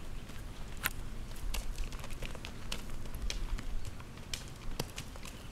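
A horse's hooves on gravelly dirt at a walk: irregular sharp clicks and crunches, over a low steady rumble.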